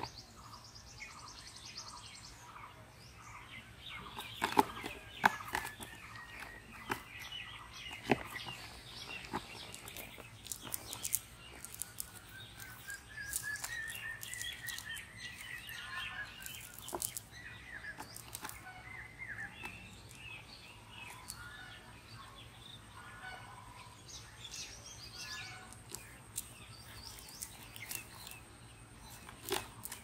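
Small birds chirping and singing, with short rising and falling whistles throughout. A few sharp taps and rustles come from a cast net and flapping fish being handled on grass; the loudest are about four and eight seconds in.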